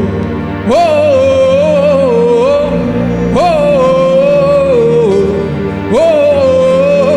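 A solo voice singing a repeated wordless 'eh' chant over a sustained low accompaniment. Each phrase swoops up, holds, then steps down, and it comes about every two and a half seconds, three times.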